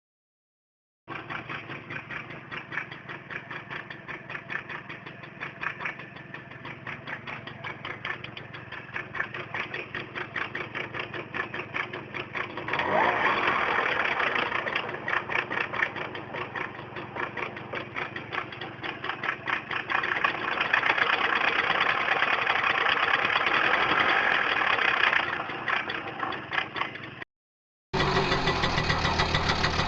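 Tomos moped's small single-cylinder two-stroke engine starting and running with a rapid rattling beat, revved up about a third of the way in and again past the middle before dropping back. It cuts off shortly before the end and then runs again.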